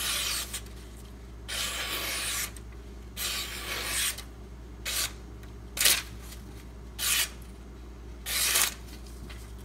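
Freshly sharpened Benchmade Mini Griptilian folding knife slicing through a paper advertising flyer. There are about seven separate hissing cuts: some are drawn out for about a second and others are quick snicks.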